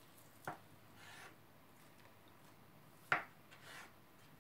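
Kitchen knife cutting through a peeled hard-boiled egg and knocking onto a wooden cutting board: two sharp knocks, the second louder, with faint scraping between.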